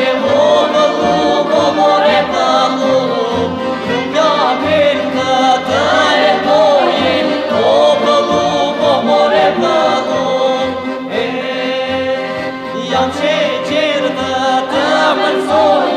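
Albanian folk song by a group of singers with instrumental accompaniment, over a steady low beat.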